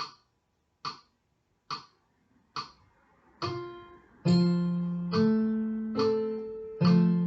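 A keyboard's bright piano sound playing at an andante moderato tempo, after a count-in of four evenly spaced clicks; single notes come in about three seconds in and fuller chords on each beat a second later.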